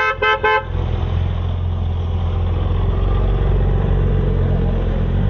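A car horn gives three quick short toots, then a car engine runs steadily.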